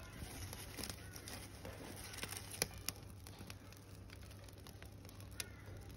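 Small kindling fire of dry twigs and leaves crackling faintly, with irregular snaps and one sharper snap about two and a half seconds in, over a low steady rumble.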